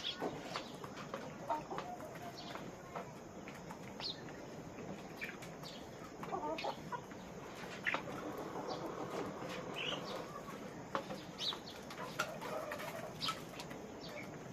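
A flock of chickens in a poultry house clucking and calling, short scattered calls one after another, with frequent small clicks and taps among them.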